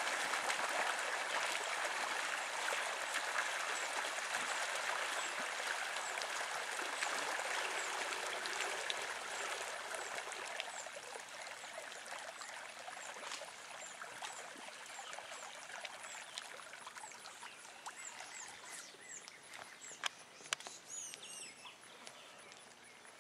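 Water gushing and splashing out of a fish-stocking hose held at the lake surface, the flow dying down steadily to a trickle near the end. Small birds chirp repeatedly in the second half, with a couple of sharp clicks near the end.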